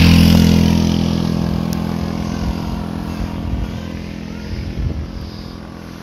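A motorcycle engine passing close by, loudest at the start and fading steadily as it moves away.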